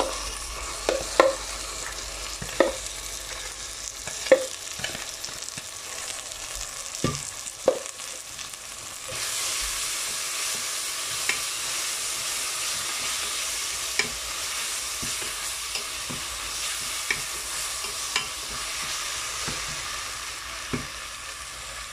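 Ginger, garlic, onion and tomato paste sizzling in hot oil with fried onions in a metal pot, stirred with a wooden spatula that knocks against the pot now and then. The sizzle gets louder about nine seconds in.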